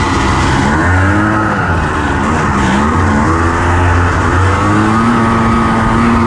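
The 1985 Honda FL350 Odyssey buggy's engine, heard from the driver's seat, revving up and down several times as it is driven hard, then holding a steady pitch near the end.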